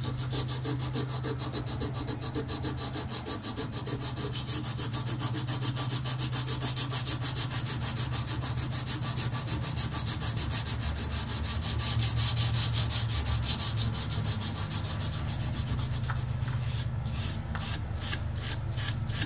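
Sandpaper rubbed back and forth by hand along the steel blade of a KA-BAR knife, cleaning it down to bare metal to get it ready for bluing. The strokes come quickly and evenly, then near the end slow into separate scrapes.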